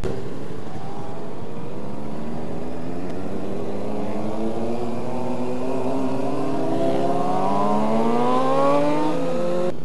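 Sport motorcycle engines accelerating, their pitch climbing slowly and steadily; near the end one engine's tone drops.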